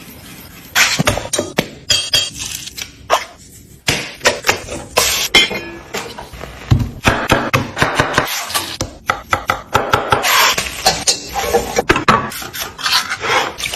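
Quick run of kitchen cooking noises: irregular knocks and clatters of utensils against cookware.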